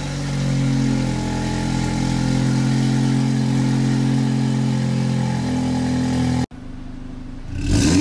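Audi S3 8V's turbocharged 2.0-litre four-cylinder running steadily through a decatted downpipe with the particulate filter and resonator deleted. About 6.5 s in the sound cuts off abruptly, and another take of the same engine starts, getting louder near the end.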